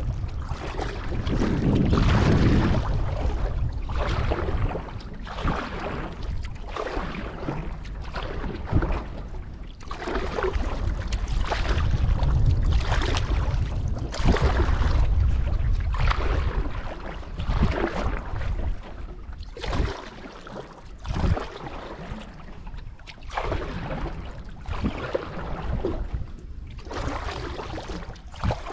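Canoe paddle strokes: water swishing and splashing with each stroke, about every one and a half seconds, over a low rumble of wind on the microphone that eases off in the second half.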